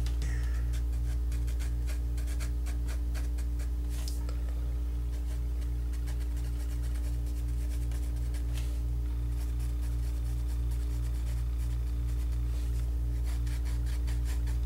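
Mechanical pencil shading on drawing paper, many short quick strokes, over a steady low hum that pulses a few times a second.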